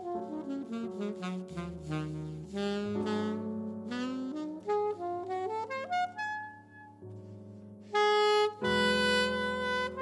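Alto saxophone playing a slow jazz ballad melody with piano accompaniment. The line steps down and then climbs back up, drops quieter about six seconds in, and a loud held note comes in about two seconds before the end.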